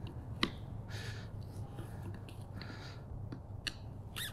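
Faint clicks and scraping of steel tire irons against a lawn mower wheel's steel rim and rubber tire as the bead is pried loose, with the sharpest click about half a second in and another near the end.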